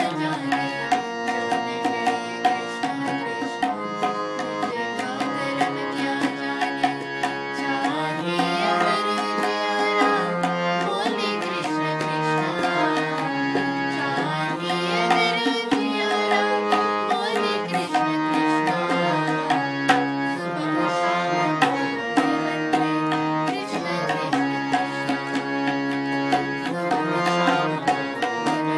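Tabla strokes keeping rhythm under a harmonium playing a held melody, its notes changing every second or two.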